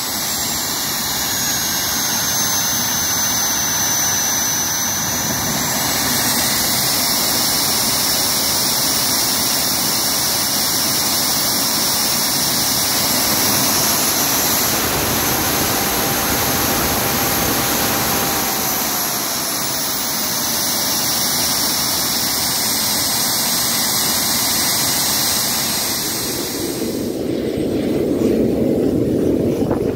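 Homemade turbocharger-based jet engine running hard: a loud rushing blast with a high turbine whine that falls and then rises again in pitch. About three seconds before the end it cuts off abruptly to wind noise on the microphone.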